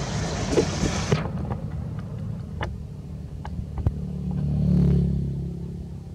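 A motor vehicle passing on the road: a low engine hum that swells about four seconds in, peaks, and fades toward the end. Before it, a rush of wind-like noise stops suddenly about a second in, with a few light clicks.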